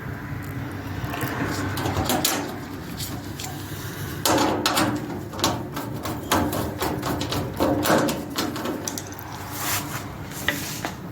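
Irregular knocks and clunks as the metal panels of a dryer cabinet are handled and fitted back into place, with a flurry of sharp knocks in the middle.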